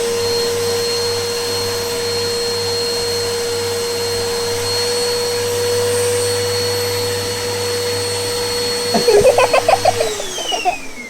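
Household vacuum cleaner running steadily with a girl's hair being drawn into its hose, its motor whine then falling away as it is switched off and spins down about ten seconds in. A short burst of voice comes just before it stops.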